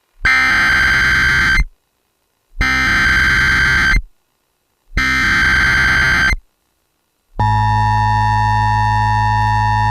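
Emergency Alert System SAME header: three bursts of screeching digital data tones about a second apart, followed a second later by a steady attention tone. Together they announce a new severe thunderstorm warning.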